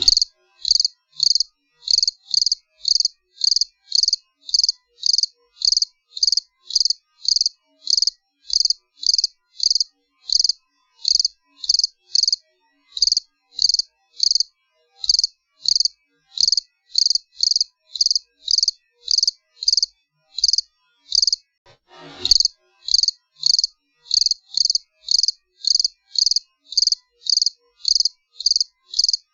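Cricket chirping steadily, about two high-pitched chirps a second. It breaks off for about a second two-thirds of the way through, and a brief soft noise comes just before it resumes.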